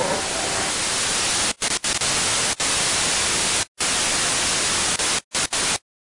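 Analog television static hiss, cut by several brief dropouts and stopping abruptly shortly before the end.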